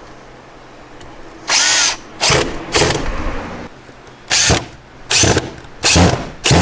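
Power drill driving 1-1/4 inch wood screws into a pine furring strip, run in about seven short bursts, the first about a second and a half in.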